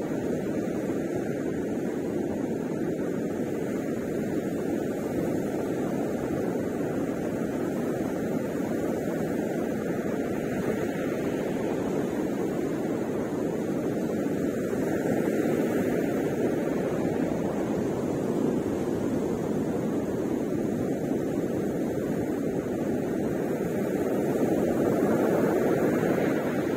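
Ocean surf breaking on the shore: a steady rushing that swells a little louder about halfway through and again near the end.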